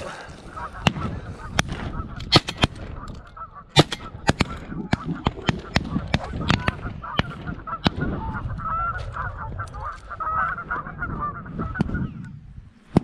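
A flock of geese honking in a steady, overlapping chorus, which fades out near the end. Many sharp clicks and knocks sound over the calling.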